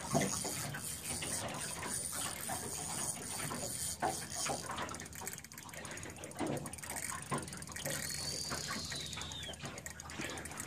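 Spinning reel being cranked while fighting a hooked sturgeon, over steady wind and water noise, with a few scattered knocks.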